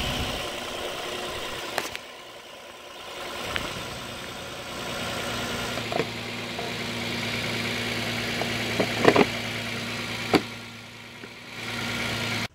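2011 Kia Sedona's engine idling steadily, with a few sharp clicks and knocks over it, the loudest about nine seconds in. The sound cuts off abruptly at the end.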